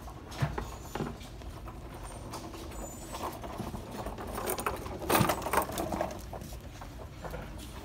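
Footsteps of suede Sperry Top-Sider boat shoes on a hard floor, soft scuffs and light knocks, with a louder cluster of scuffing and rustling about five seconds in.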